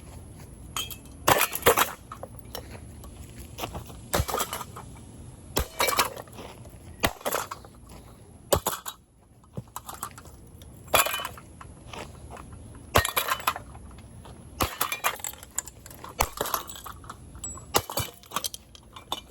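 A sledgehammer repeatedly smashing a cheap ceiling fan: about a dozen hard blows, roughly one every one to two seconds, each with clinking and breaking of the fan's parts.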